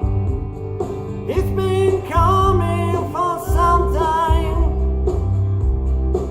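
Karaoke backing track of a country-rock song, with steady bass and strummed guitar. A single voice sings a line of the melody over it from about a second in until just before the halfway point.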